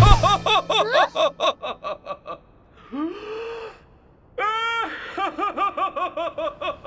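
Cartoon characters laughing in rapid repeated bursts, with a breathy pause about three seconds in. A dull low thud sounds right at the start.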